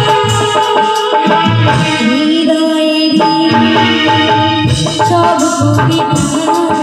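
A woman singing a Bengali song into a microphone over live band music with a steady drum beat.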